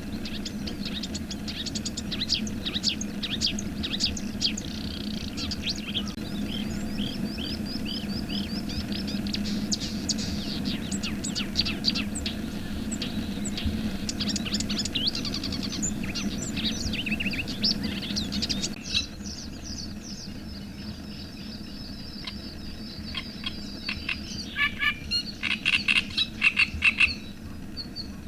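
A chorus of frogs calling steadily under many songbirds singing and chirping. The frog chorus thins about two-thirds of the way in, and near the end a bird gives a loud quick run of calls.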